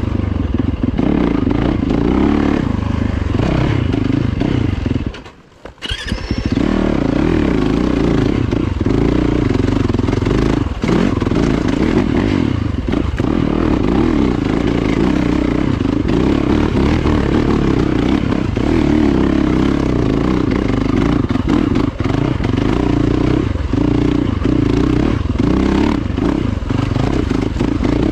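Yamaha dirt bike engine running under throttle on a woods trail, its pitch rising and falling as the rider works the throttle, with clatter from the bike over rough ground. The sound drops away briefly about five seconds in.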